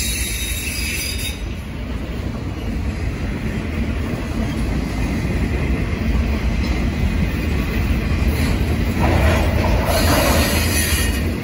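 Freight train cars rolling past: a steady low rumble of steel wheels on the rails, growing a little louder in the last few seconds.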